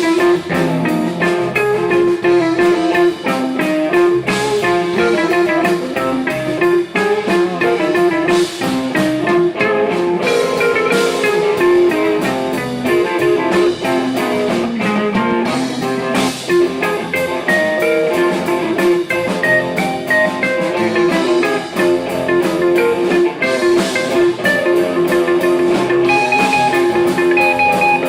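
Blues-style music led by guitar with a drum kit, playing steadily throughout.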